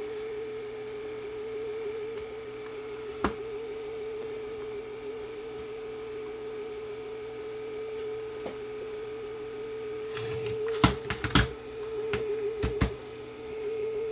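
A 440 Hz test tone played back from cassette on an MTC portable cassette recorder, its pitch wavering with wow and flutter from a worn drive belt, though running at about the right speed. A few clicks sound over it, most of them in the last few seconds.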